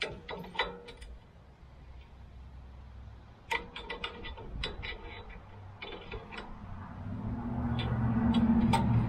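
Small metal clicks and rattles of a leaf blower's throttle control lever and cable being handled and worked. A low rumble swells up over the last two seconds.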